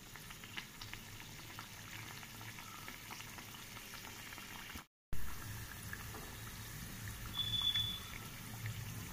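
Oil sizzling and bubbling around a poddo luchi deep-frying on low heat in a karahi, with a few light clicks from a wire strainer and spatula. The sound cuts out completely for a moment about halfway through and comes back a little louder.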